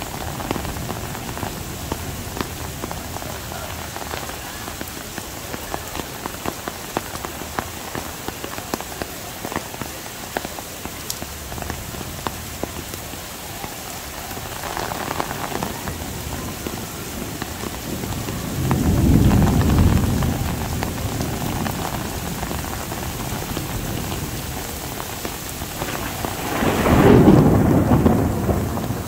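Heavy rain falling steadily, thick with the patter of drops, while thunder rumbles twice: once about two-thirds of the way through and again, louder, near the end.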